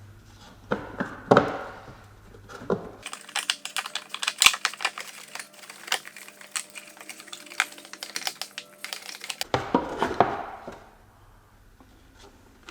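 Hand tools working on the car: a few seconds of scraping, then about six seconds of rapid, irregular metallic clicking and rattling, then another brief scrape near the end.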